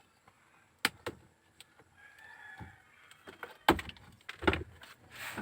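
A few sharp clicks and knocks from tools and wiring parts being handled, the loudest two close together near four and four and a half seconds, with a faint pitched call in the background about two seconds in.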